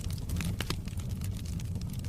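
Wood burning in a fireplace, crackling: many sharp pops and snaps over a steady low rumble.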